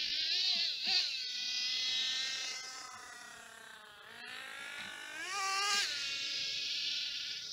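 Kyosho Nitro Mad Crusher's small two-stroke nitro glow engine running at a distance, its high-pitched whine rising and falling with the throttle as the truck drives. It revs up sharply about five seconds in.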